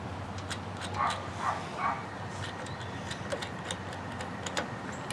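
A dog barking three times in quick succession, short sharp barks. Scattered light clicks of hand tools on the battery terminal are heard throughout.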